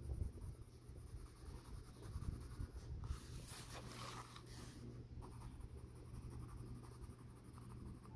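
Faint scratching of a soft-leaded Faber-Castell Ecolápis neon coloured pencil shading back and forth on paper, with a short break and a light rustle as the sheet is moved near the middle.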